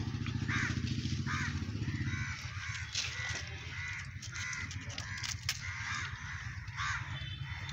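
Birds calling repeatedly outdoors, a run of short harsh calls several a second, over a steady low hum.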